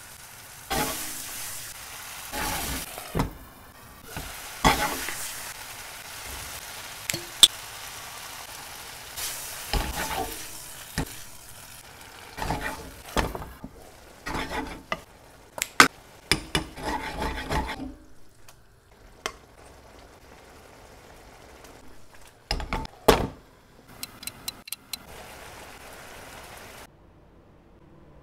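Tomato sauce and fried tofu sizzling in a frying pan while a spatula stirs and scrapes through it, with several sharp knocks of the utensil against the pan. The sizzle fades about two-thirds of the way in, leaving scattered clicks.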